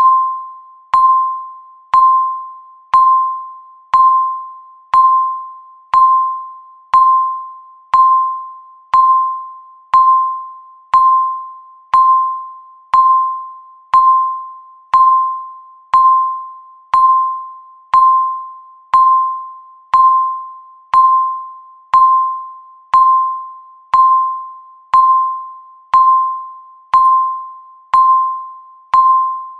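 Countdown timer beep: a single electronic tone that repeats once every second, each beep sharp at the start and fading quickly.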